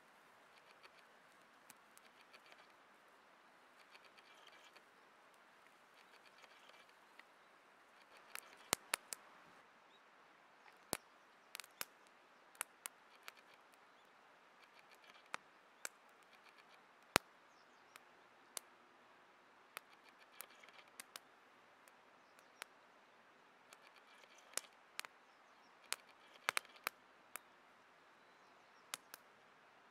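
Wood campfire burning under a grill, giving off irregular sharp pops and crackles over a faint steady hiss. The pops come thick and fast from about eight seconds in.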